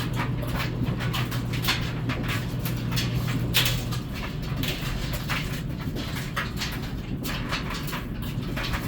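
GE Profile top-load washing machine running mid-cycle: a steady motor hum that stops about four seconds in, over a rapid, irregular series of swishes from the drum.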